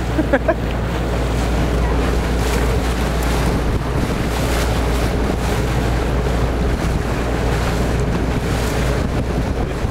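Wind buffeting the microphone aboard a moving boat over choppy water, with water rushing past the hull and a steady low rumble underneath.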